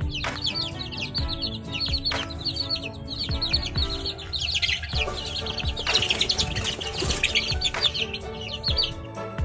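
A flock of young chickens peeping: many short, high, falling chirps in quick succession, thickest a little past the middle. Soft background music runs underneath.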